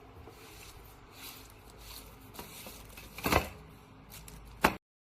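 Handling noises: soft rustling and small clicks, with two sharp knocks, one past the middle and one just before the sound cuts off abruptly.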